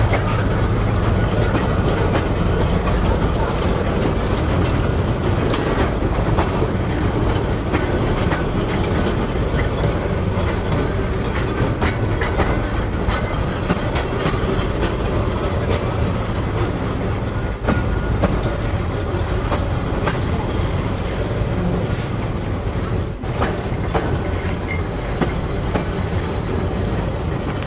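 Freight train of container flatcars rolling past close by: the wheels clatter on the rails, with many sharp irregular clicks over a steady low rumble.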